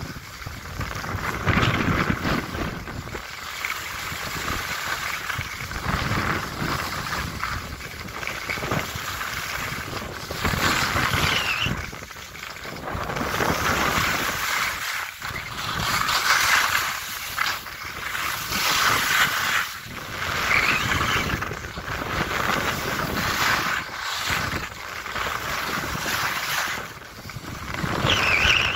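Skis carving and scraping over packed snow, swelling with each turn every two to three seconds, with wind buffeting the microphone.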